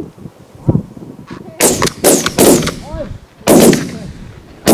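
About five shotgun shots in quick succession, each with a short echo tail, fired at geese coming into the decoys, with geese honking between the shots.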